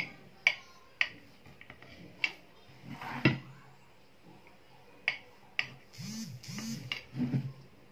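Knife tapping and clicking against a metal serving tray while slicing a marbled sponge cake: a series of sharp, separate taps, with a soft scraping of the blade and a few short low voice-like sounds near the end.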